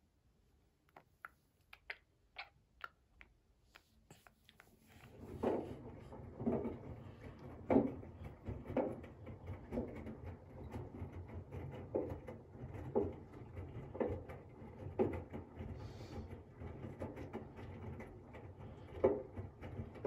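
Washing machine starting up about five seconds in: a steady low hum of the turning drum with soft thumps about once a second. A few faint clicks come before it.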